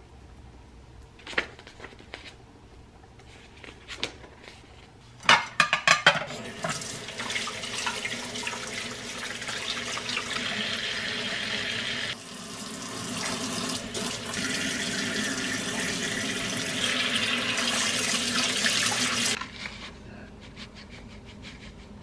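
A kitchen tap runs in a steady stream into the sink while dishes are washed by hand, then is shut off abruptly a few seconds before the end. Before the water starts there are a few scattered knocks and a quick clatter.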